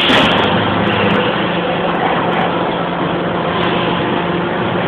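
CNC wire bending machine running: a steady mechanical noise with a faint low hum underneath.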